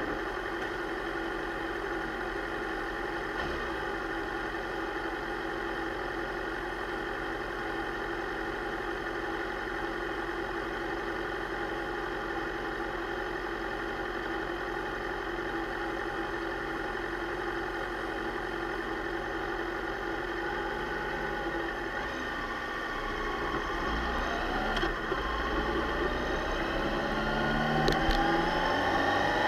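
Suzuki GSX-R600 K7's inline-four engine idling steadily. In the last several seconds it gets louder and the engine note rises as the bike pulls away.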